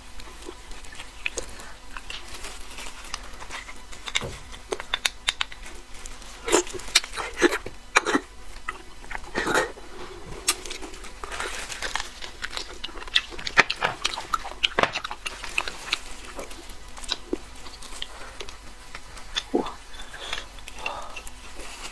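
Eating sounds from marrow bones: a metal spoon scraping and clicking inside a bone section to dig out the marrow, with biting and chewing at the bone ends. Irregular clicks and scrapes, thickest through the middle.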